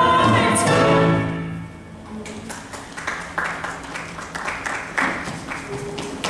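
A singer holds the final note of a musical-theatre song over its accompaniment, and it ends about a second and a half in. Scattered handclaps follow.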